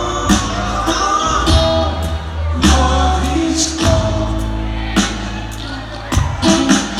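Live band playing: electric guitar, upright bass and drums, with a male voice singing, heard from the audience in a concert hall.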